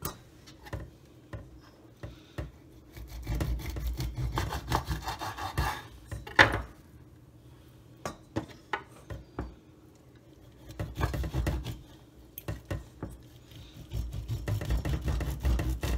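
A kitchen knife sawing back and forth through a pomfret on a wooden cutting board, in stretches of rasping strokes a few seconds long. Between the stretches come sharp knocks of the knife and fish against the board, the loudest about six and a half seconds in.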